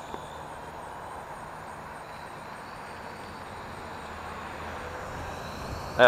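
Steady outdoor background rush of wind on the microphone, with a faint high whine from the small Syma X5UC quadcopter's motors in flight.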